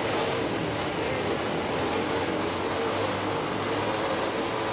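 Several dirt-bike engines running together on a race start line, a steady drone with a faintly wavering pitch as the riders hold them ready.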